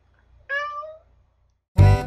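A domestic cat meows once, about half a second long, with a slight rise then fall in pitch. Near the end, loud keyboard music starts.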